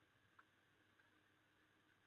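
Near silence: faint background hiss, with one brief faint tick just under half a second in.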